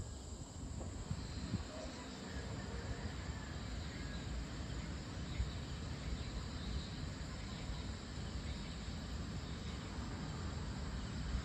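Evening outdoor ambience: a steady low rumble of distant traffic with faint insect calls over it.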